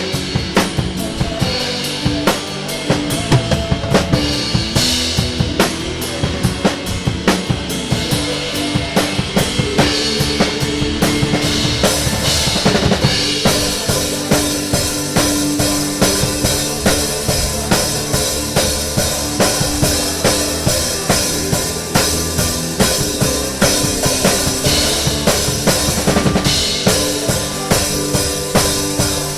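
Drum kit, with kick, snare and cymbals, playing a steady beat along with a full band.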